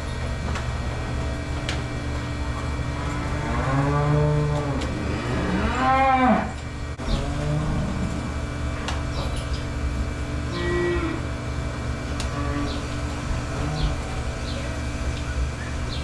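Dairy cows mooing: two long moos, the pitch of each rising then falling, about four and six seconds in, the second the loudest, over a steady low hum.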